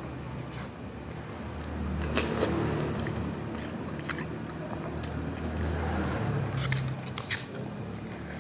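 Close-up chewing and biting of instant cup noodles with meatball, egg and cabbage, with many small wet mouth clicks.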